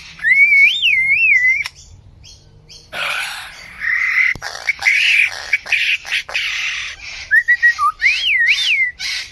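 A bird singing a varied song: warbling whistled phrases that glide up and down in pitch, broken by harsher, rougher chattering calls in the middle, then more whistled phrases near the end.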